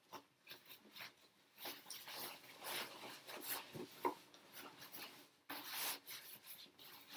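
Nylon backpack fabric and stuff sacks rustling and rubbing as gear is pushed down into the top of a loaded backpack, in irregular scrapes, with one short, sharper sound about four seconds in.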